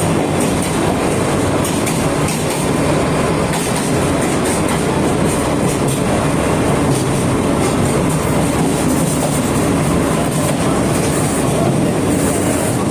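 Sagano Romantic Train running along its track, heard from on board: a steady rumble of wheels on rail, with faint clicks.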